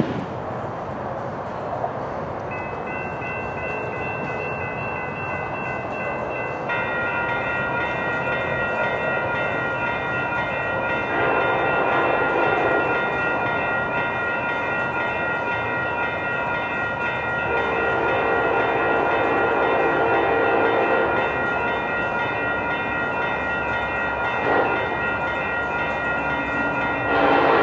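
Railroad grade-crossing warning bells ringing steadily, with a second set joining in about seven seconds in. An approaching freight locomotive's horn sounds in the distance in long blasts, twice, then briefly near the end.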